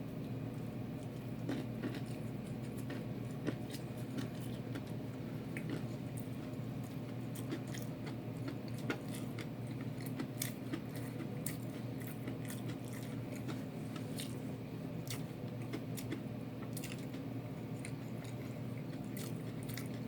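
Close-up chewing of spicy Korean fried chicken and rice: irregular small crunches and wet mouth clicks, with a steady low hum underneath.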